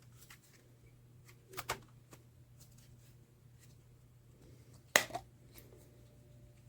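Small handling noises of objects being moved about: scattered light clicks, a louder double knock about a second and a half in, and a sharp click, the loudest, about five seconds in, over a faint steady hum.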